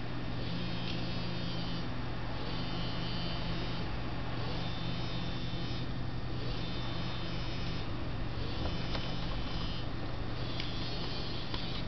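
A phone buzzing in repeated pulses, each about a second long and about two seconds apart, over a steady low hum.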